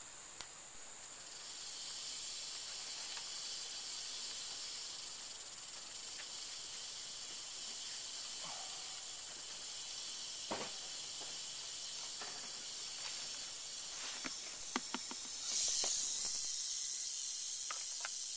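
Western diamondback rattlesnake rattling: a steady high buzz that becomes suddenly louder about fifteen seconds in, right after a few sharp plastic clicks as the latched lid of its clear plastic tub is opened.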